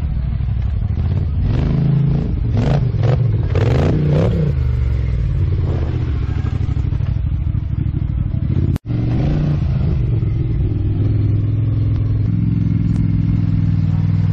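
Polaris Scrambler XP 1000 ATV's twin-cylinder engine revving up and down in the first few seconds, with short sharp bursts. After a brief break in the sound about nine seconds in, it runs more steadily.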